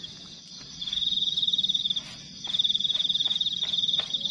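A night-calling animal gives a high-pitched pulsing trill in phrases about a second long, with short gaps between them. A few faint light clicks come in the second half.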